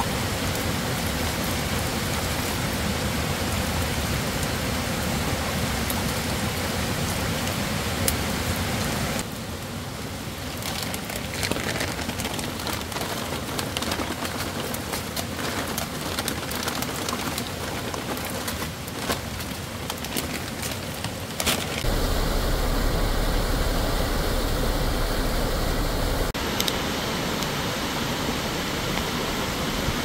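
Steady rain noise across a run of cut-together shots, with scattered clicks and crackles through the middle and the rush of a rain-swollen mountain stream toward the end.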